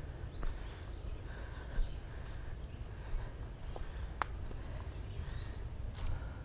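Footsteps of someone walking a dirt forest trail over a steady low rumble, with a sharp click about four seconds in. Birds call faintly in the woods.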